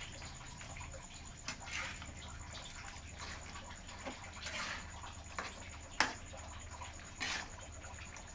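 A utensil stirring a thick meat-and-potato stew in a metal pan. The sauce sloshes, and the utensil clicks sharply against the pan a few times, loudest about six seconds in, over a steady low hum.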